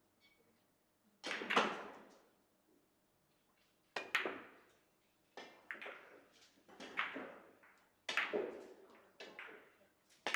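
Russian pyramid billiard balls clacking: a cue strike followed by a string of sharp ball-on-ball and cushion knocks, about seven, each ringing briefly in the hall.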